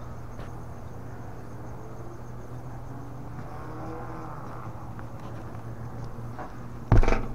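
Steady low electrical hum under background hiss, with a faint wavering pitched sound in the middle. Near the end comes a short, loud voiced sound, a call or a word.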